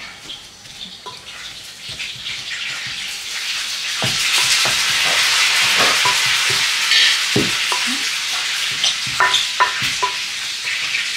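Cutlets sizzling in a frying pan, the sizzle swelling about four seconds in and easing off later, with scattered light knocks of kitchen utensils.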